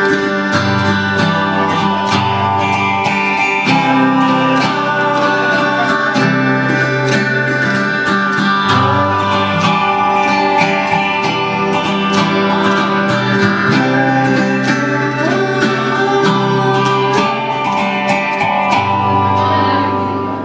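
Steel-string acoustic guitar strummed in a steady rhythm, with the chords' low notes changing every second or two; the playing grows quieter near the end.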